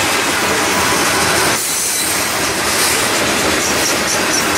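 Freight train cars rolling past, a loud steady noise of steel wheels on the rails that dips briefly about a second and a half in.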